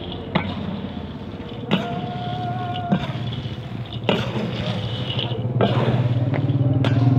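Peanuts being stirred through hot sand in a large iron wok with a metal scoop, a scraping stroke about every second and a half. A motor engine runs louder in the last couple of seconds.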